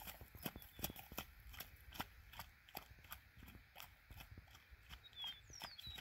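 Sorrel Quarter Pony mare's hooves at a walk on a wet dirt road, about three faint hoofbeats a second, growing fainter as she moves away. A bird chirps near the end.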